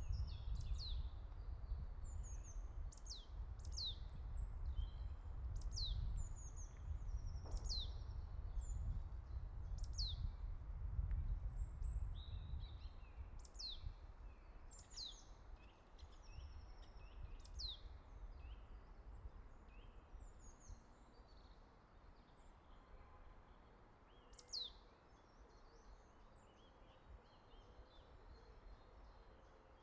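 Birds singing in a forest: high, steeply falling whistled notes repeated every second or two, with shorter chirps between. Under them is a low rumble that fades away about halfway through.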